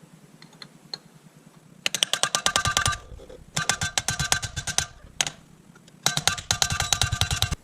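Pilot bearing being driven into the crankshaft with rapid metallic blows, about a dozen a second, in three bursts of roughly a second each with short pauses between.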